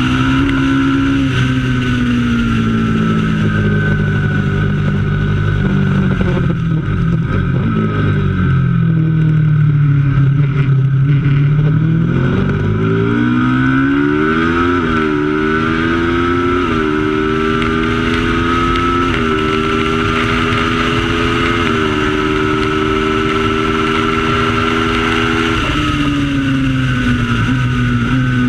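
Racing motorcycle engine under way: the revs fall for several seconds as it slows, then it accelerates hard, climbing through the gears with four quick upshifts before holding speed. The revs drop again near the end.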